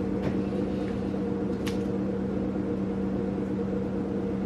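A steady machine hum at an even level, with a couple of faint light clicks in its first two seconds.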